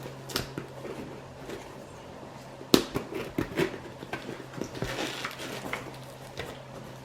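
A cardboard shipping box being opened and its packing handled: scattered knocks and crinkling rustles, with a sharp knock about three seconds in, over a steady low hum.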